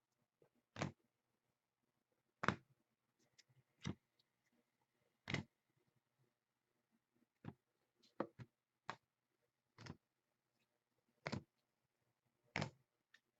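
Trading cards being sorted by hand on a table: a short, sharp tap or click every second or so, at irregular spacing, as cards and their holders are set down.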